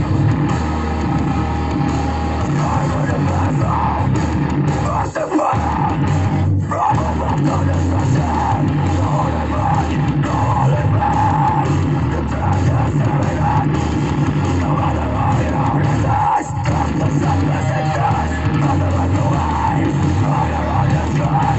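Loud music with heavy bass played through a large 2500-watt outdoor sound system of stacked speaker cabinets, running steadily at full power for a contest judging.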